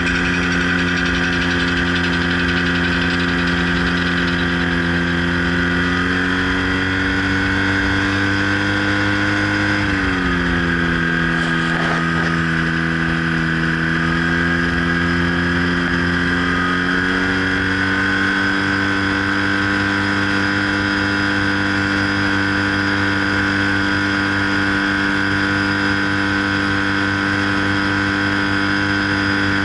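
Aerotrike Safari ultralight trike's engine running steadily at taxi power. Its pitch rises slightly about six seconds in, drops back around ten seconds, then rises again and holds.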